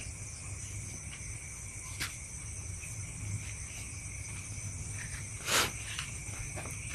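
A steady chorus of crickets, with continuous high chirping at several pitches. A faint click comes about two seconds in, and a short, louder rustle comes about five and a half seconds in.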